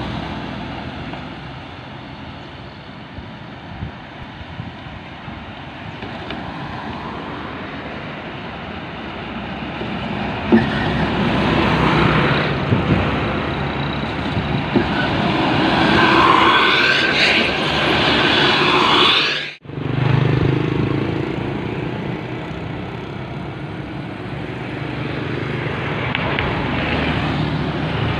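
Road traffic passing close by: motorcycles, cars and large buses driving past, loudest in the middle as the buses go by. The sound cuts out for a moment about two-thirds of the way through, then motor engines carry on.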